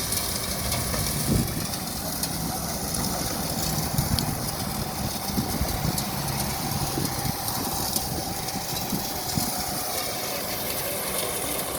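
Machine running steadily, with a few short knocks over its hum.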